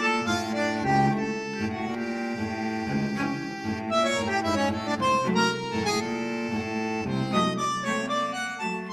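Background music: an accordion-like reed melody playing a run of short notes over a steady sustained lower part.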